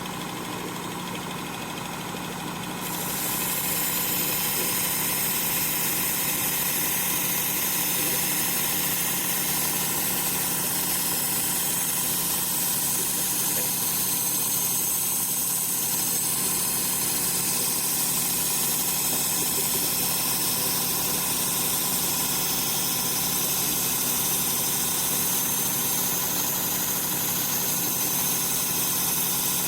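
Work Sharp powered belt sharpener with its blade grinding attachment running steadily on a well-worn 80-grit belt, sharpening kitchen knives. It gets louder and brighter about three seconds in.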